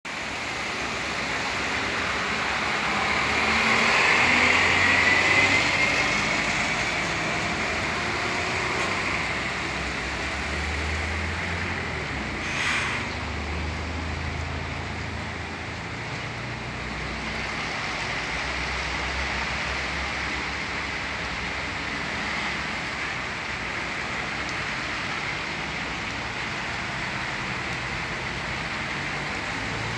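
Street traffic: a steady hum of passing cars, one passing close and loudest a few seconds in, with a single short knock about halfway through.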